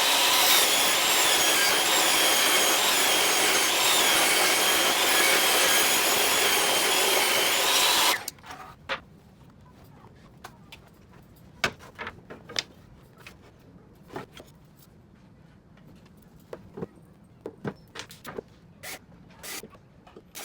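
An electric power tool running steadily on wood for about eight seconds with a slightly wavering whine, then switched off; afterwards a few light scattered clicks and knocks.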